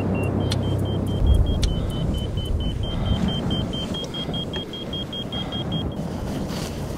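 Ortovox Diract Voice avalanche transceiver beeping rapidly in fine-search mode, about five short high beeps a second, stopping about a second before the end. The fast beep rate shows the buried transmitter is close, with the display reading under a metre.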